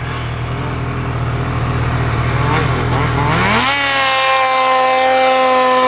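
Snowmobile engine running at low revs, then about three and a half seconds in it revs up quickly and holds a steady high-pitched whine under acceleration. The sound cuts off suddenly at the end.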